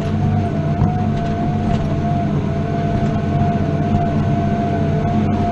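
New Holland T7 210 tractor's six-cylinder diesel engine running steadily under load, pulling a five-furrow plough, heard from inside the cab, with a steady high whine over the drone.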